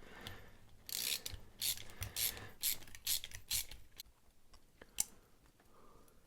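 Small metal parts of a Kershaw 5150 Lucha butterfly knife being worked apart by hand, its pivot screws and bearings coming out. A run of short scratchy rasps is followed by a single sharp click about five seconds in.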